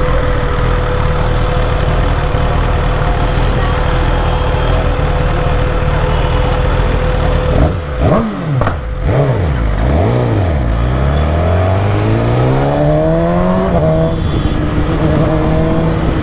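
BMW S1000RR inline-four engine idling in neutral, then a few quick throttle blips about halfway through, followed by a long rising pull through first gear and an upshift near the end, after which it runs at a steady higher note.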